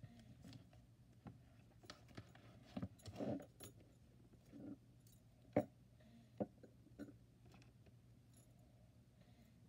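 Light handling sounds of a spiral notebook being laid on a wooden desk and pressed flat by hand: scattered soft knocks, rustles and small metallic clinks, the sharpest knock about halfway through.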